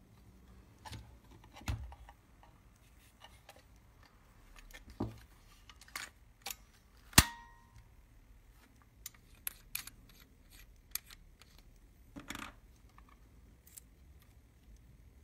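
Clicks and snaps of a Konica Pearl folding camera being opened and worked by hand. The loudest is a single sharp metallic snap with a brief ring about seven seconds in, and smaller clicks come from the catch, lens and shutter rings around it.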